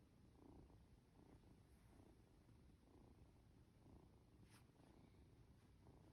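Norwegian Forest Cat kitten purring faintly, the purr swelling and fading about once a second with its breathing while it is stroked and drowsy. A single faint click a little after halfway.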